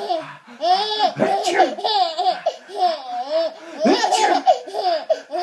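Baby girl laughing hard in repeated bursts of high-pitched giggles, set off by an adult's fake sneezes, which come as short noisy bursts between the laughs.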